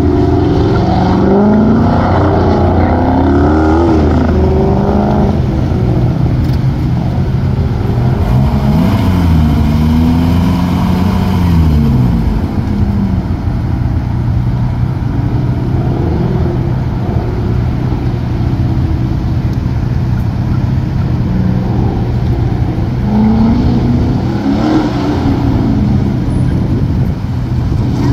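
Dodge Challenger engine revving up and falling back again and again as the car accelerates and brakes through a tight autocross cone course. In the middle it settles to a lower, steadier run, then climbs again near the end, over the steady running of another engine close by.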